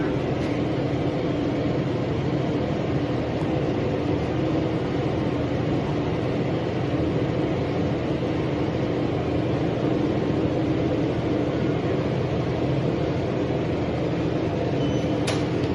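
Steady running noise of a motor vehicle, an engine hum over rumble. A sharp click comes near the end.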